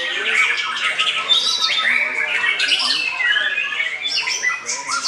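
White-rumped shama singing a fast, unbroken stream of varied whistles, glides and harsh chattering notes, mixed with other songbirds singing at the same time.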